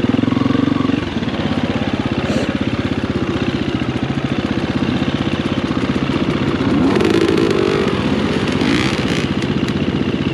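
Motocross dirt bike engine running, first with a steady note and then at low revs with its firing pulses audible. The engine revs up about seven seconds in and again about two seconds later.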